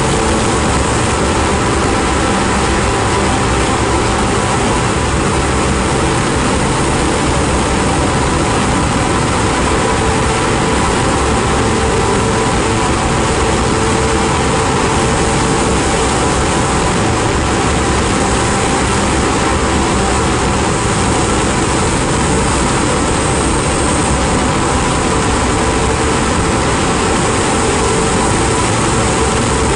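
Drone-noise music: a dense, unchanging wall of hiss and rumble with a few held tones inside it, one mid tone coming and going.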